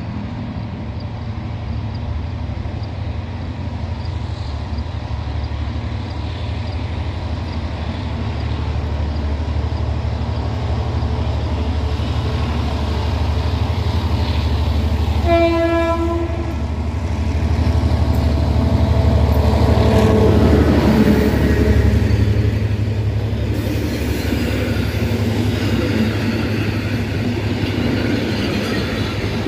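An approaching passenger train hauled by a diesel locomotive: a low, steady engine drone grows louder, the locomotive gives one short horn blast about halfway through, and its coaches then roll close past with a rumbling rush of wheels on rails.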